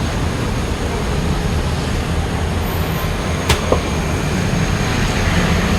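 Stovetop moka pot brewing tea with its lid open: a steady hiss and rumble as the water is forced up and flows out, with two light clicks about three and a half seconds in.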